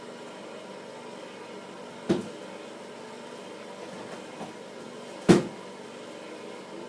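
A man coughing twice, each a single sharp cough, about three seconds apart: deliberate, faked coughs. A steady low hum runs underneath.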